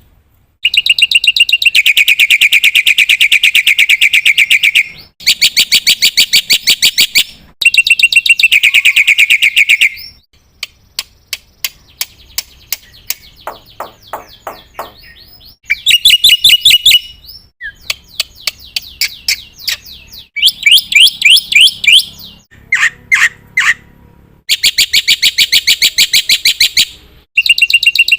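Black-winged myna (jalak putih) singing loudly in full song: phrases of very fast, harsh rattling notes, each a few seconds long, with short breaks and a quieter stretch of clicks and soft trills in the middle.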